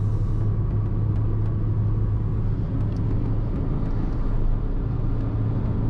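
Steady cabin noise of a car driving at highway speed: tyre and road rumble with a constant low hum.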